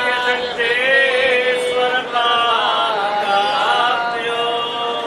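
A man's voice chanting a Sanskrit hymn in long, drawn-out sung notes that waver and bend in pitch, with short breaks between phrases.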